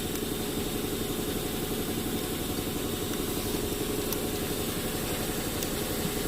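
An engine idling steadily: an even, continuous hum with a fine rapid pulse, and a couple of faint ticks near the end.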